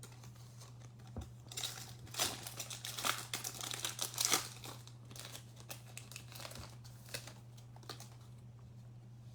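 Foil wrapper of a basketball card pack being torn open and crinkled: a run of crackly bursts from about a second and a half in until about four and a half seconds, then a few light ticks and rustles as the cards are handled.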